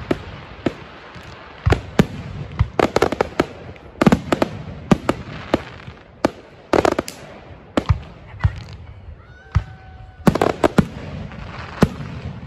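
Aerial fireworks shells bursting in a display: a run of sharp bangs about every second, several coming in quick clusters of two to four.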